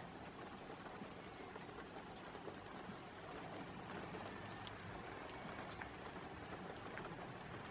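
Faint, steady outdoor background hiss, with a few faint, short, high chirps scattered through it.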